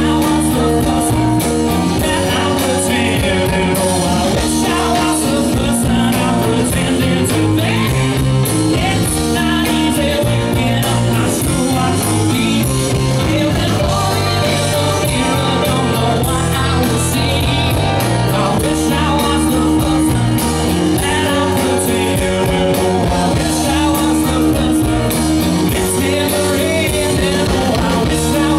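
Live rock band playing: a male singer over electric guitar, bass guitar, drums and keyboard, full and loud without a break.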